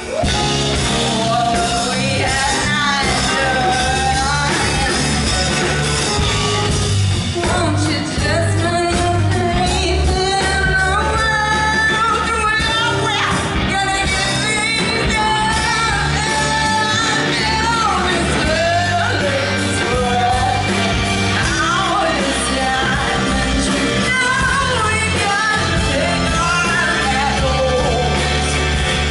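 Live band playing a funk song: a woman sings lead over electric guitars, keyboard and drums.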